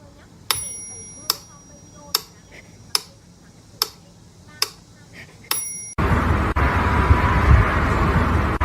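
Sharp metallic ticks about once every second, several of them ringing briefly like a small bell. About six seconds in they give way abruptly to a much louder, steady noisy din.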